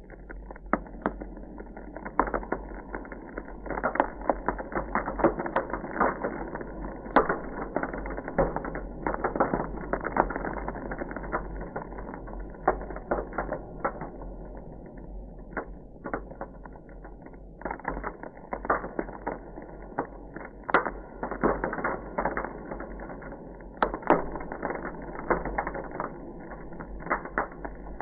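Ice crackling: a dense run of irregular small clicks and snaps, coming thicker in clusters at times, over a steady low rumble.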